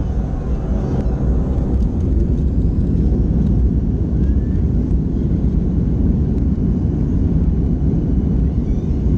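Airliner engine and airframe noise heard inside the passenger cabin: a loud, steady low rumble that builds slightly over the first couple of seconds as the plane rolls along the ground.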